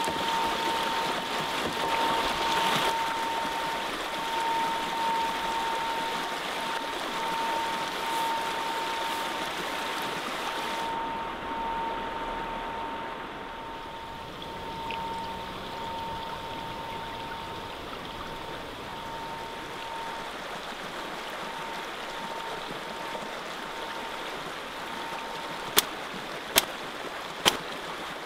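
Shallow creek water running steadily over rocks, a continuous rushing. A faint steady tone sits under it for most of the time, and three sharp clicks come near the end.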